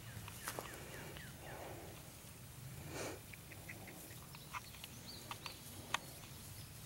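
Birds chirping with short, quick notes, over a steady low rumble of wind on the microphone, with one short rushing noise about three seconds in.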